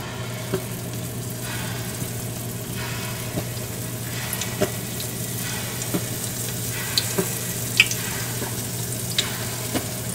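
Small rounds of batter frying in hot oil in a skillet, sizzling steadily with scattered sharp pops and crackles as more batter is squeezed in.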